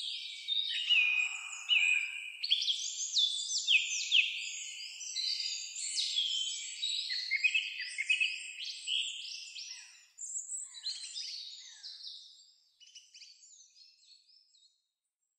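Songbirds singing together, many overlapping high chirps and trills, thinning out and fading to nothing over the last few seconds.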